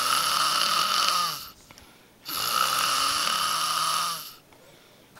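A man snoring loudly in long, rasping snores: one ends about a second in, the next runs from about two seconds to four seconds in, with a quiet in-between pause, and another begins at the very end.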